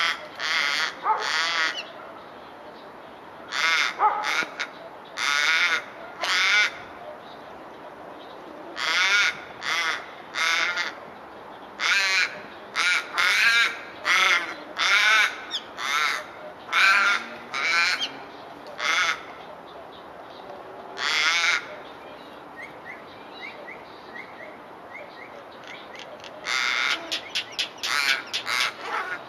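Australian raven calling again and again at a brushtail possum it is harassing: harsh, drawn-out caws in runs of two to four, with a quicker run of shorter calls near the end.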